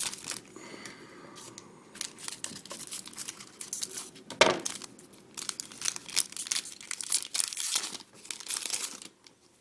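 Foil wrapper of a hockey trading-card pack crinkling and tearing as it is opened and the cards are handled, in irregular crackly bursts, with a sharper knock about four and a half seconds in.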